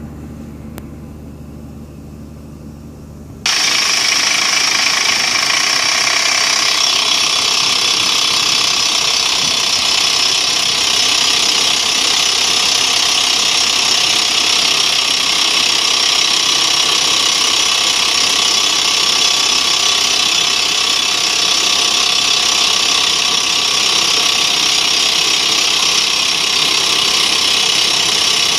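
BPI 112 rock drilling rig running with a low, steady hum, then about three and a half seconds in the drill cuts in suddenly and runs loud and steady, boring a blast hole into quarry rock.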